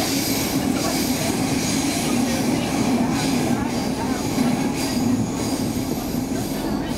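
Stockholm Metro C6 train running at speed, heard from inside the car as a steady rumble, with faint high wheel squeals coming and going.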